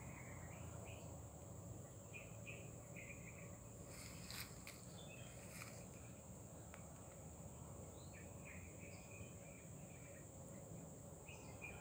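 Faint outdoor ambience: a steady high-pitched insect drone, with scattered short chirps and a few faint clicks about four to six seconds in.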